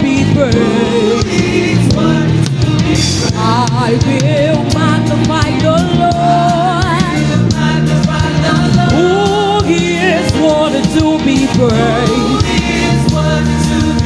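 Gospel praise and worship music: sung vocals with bending, ornamented melody lines over a live band with bass guitar and drums keeping a steady beat.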